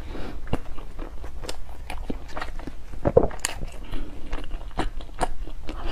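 Close-miked chewing of a soft chilled bun, with many short wet mouth clicks and lip smacks, and a brief hum about three seconds in.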